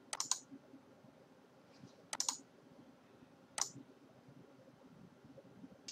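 Computer mouse clicking in three short bursts of two or three clicks each, spaced a second or two apart.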